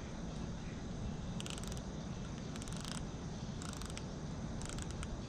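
Fishing reel clicking in four short bursts of rapid ticks, about a second apart, as the line is worked on a bite, over a steady low background rumble.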